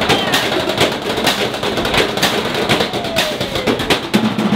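Drumsticks beating on galvanized metal trash cans in a fast percussion routine: a quick, steady run of sharp metallic strikes, several a second.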